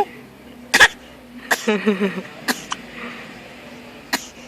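Pretend coughing: a string of short forced coughs spread apart, the loudest about a second in, one of them trailing off into a few short voiced huffs.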